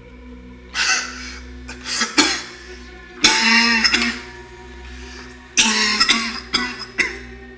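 A person coughing hard in repeated fits, over a steady droning music chord.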